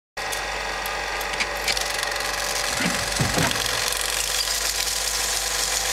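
A steady mechanical running sound with a rattling edge under constant hiss, with a couple of faint low sweeps about three seconds in.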